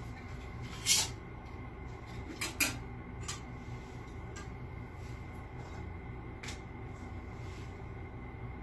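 Glassware and dishes being handled during a meal: short clinks and knocks, the sharpest about a second in, a quick pair a little later and a few lighter ones after, over a steady low hum.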